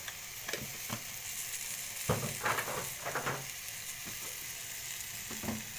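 Butter-browned pasta and tomato sauce sizzling in a pot, a steady hiss, while a spoon stirs and scrapes against the pot. The scrapes and knocks come thickest from about two to three and a half seconds in, with a few more before and near the end.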